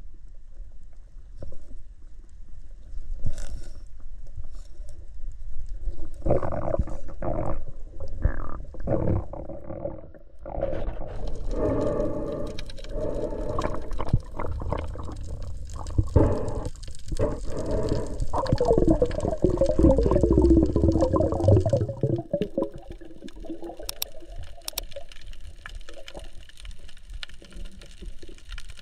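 Muffled underwater sound of water swishing and gurgling, in uneven bursts that begin about six seconds in, with a wavering tone near the middle.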